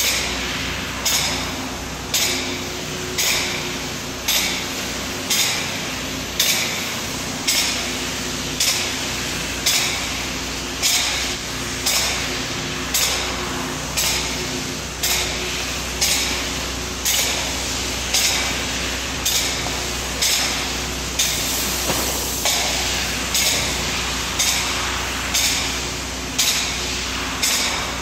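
Spray foam gun spraying closed-cell foam: a loud, steady hiss that surges and dies back about once a second, with a faint low hum underneath.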